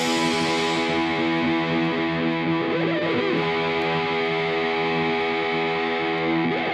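Background music: sustained chords on a distorted electric guitar with effects, held steadily.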